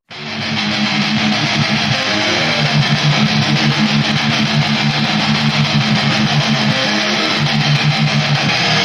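Music: an electric guitar playing sustained low notes that shift every second or so.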